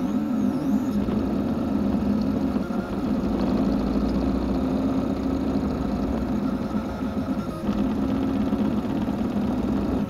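FDM 3D printer at work: stepper motors whirring as the print head moves around a ring-shaped part, over the steady hum of the cooling fans.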